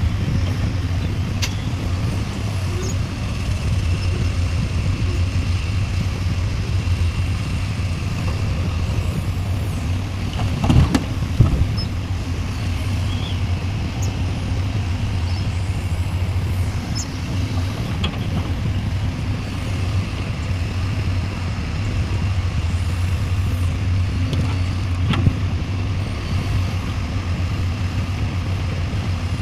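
Heavy diesel engine of an excavator at work, running steadily with a deep hum. Occasional sharp knocks sound over it, the loudest about eleven seconds in.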